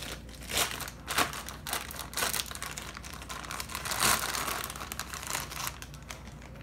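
Clear plastic packaging bag crinkling and rustling in the hands as a small glass teacup is pulled out of it, in irregular crackles that are loudest about four seconds in.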